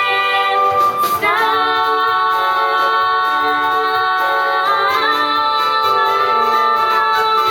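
Female voices singing the long held closing notes of a musical-theatre number, sliding up to a higher note about a second in and again near five seconds.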